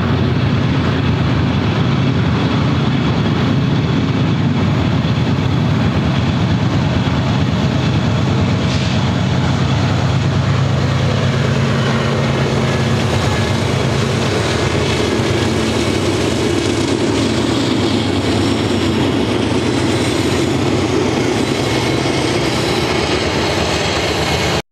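BNSF GE diesel locomotives pulling a double-stack container train past: a steady, loud, low engine rumble mixed with the running noise of wheels and cars on the rails.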